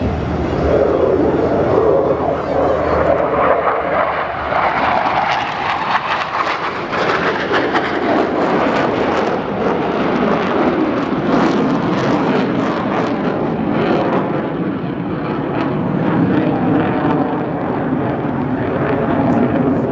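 Loud, continuous jet roar from a Blue Angels F/A-18 Super Hornet's twin jet engines as it flies past and climbs away. The pitch slides downward over the first few seconds, and the roar turns ragged and crackling in the middle.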